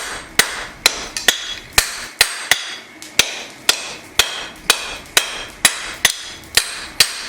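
Blacksmith's hand hammer striking hot steel over the far corner of an anvil, about two blows a second, each with a metallic ring. The blows are forging the notch into a one-piece knife blank.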